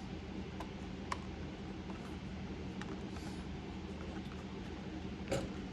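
A few faint, sharp handling clicks and creaks from small parts and packaging being picked up and moved, over a steady low background hum.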